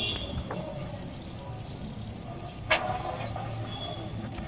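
Hacksaw blade worked by hand, scraping a groove into the brass ball of a ball valve, with one sharp metallic click about two-thirds of the way through, over a steady low hum.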